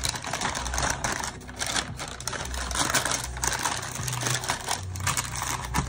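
Brown kraft paper packaging rustling and crinkling as it is handled and unfolded, a dense run of fine crackles.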